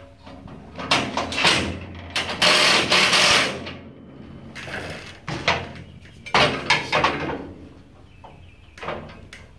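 Cordless drill driving screws into sheet steel in several short, stop-and-start bursts, the longest lasting about a second. The screws hold a new steel body post in place before it is welded.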